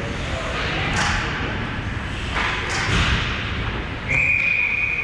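Ice hockey game noise in an arena: a couple of thuds and rushes of scraping noise, then a referee's whistle blowing one long, steady note about four seconds in, stopping play.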